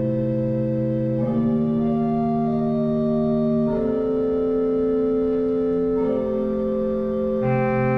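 Organ playing slow sustained chords, each held for a second or two before moving to the next chord.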